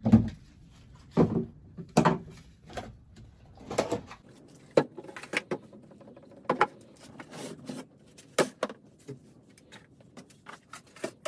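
Irregular knocks and clunks of bottles, tubs and jars being picked up and set down as a wooden shelf is cleared.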